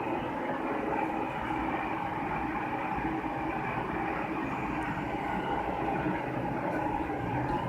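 Loud, steady rushing noise of water, with a faint hum running through it.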